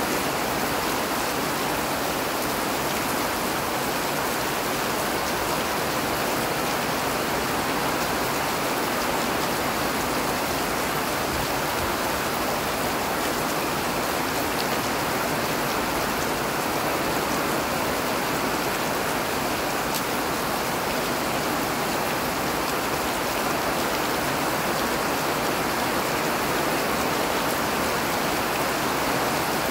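Steady rain falling, an even hiss of water that holds the same level throughout.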